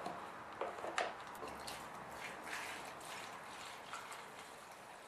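Gasoline poured from a plastic gas can into a minibike's plastic fuel tank, a faint steady trickle of liquid. A couple of sharp clicks near the start as the tank's filler cap comes off.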